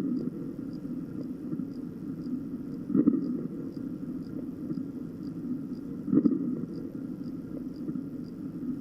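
Normal vesicular breath sounds played by an auscultation training mannequin: a soft, low rushing that swells with each breath, about every three seconds.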